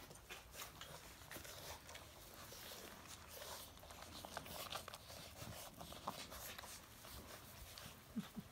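Livestock guardian dog puppies scuffling about, faint scattered clicks and rustles.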